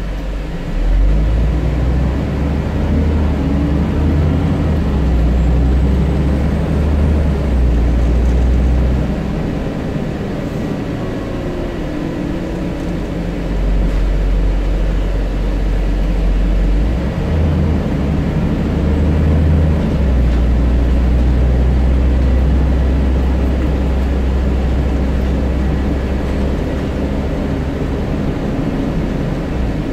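A Scania N94UD double-decker bus running on the road, heard from its upper deck: a loud, low engine and drivetrain drone that swells and eases several times as it pulls and backs off, dropping back for a few seconds about ten seconds in before building again.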